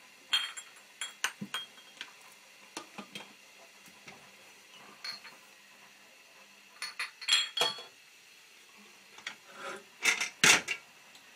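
Glass canning jars, a metal ladle and a canning funnel clinking and knocking together as hot jelly is ladled into the jars: scattered sharp clinks with short quiet gaps, a louder cluster about seven seconds in and the loudest knocks near the end.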